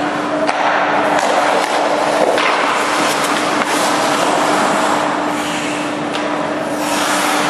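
Ice hockey skates scraping and carving on rink ice, with several sharp knocks of pucks and sticks during shooting practice on a goalie. A steady hum runs underneath.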